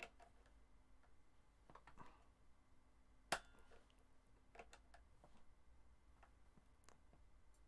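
Faint clicks and taps of hands working at a Les Paul's headstock while it is restrung, with one sharp click about three seconds in.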